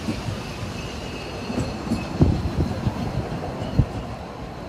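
750 mm narrow-gauge passenger coaches rolling slowly past, their wheels knocking irregularly over the rail joints, with a heavy thump about two seconds in and another later on. A faint high wheel squeal runs beneath.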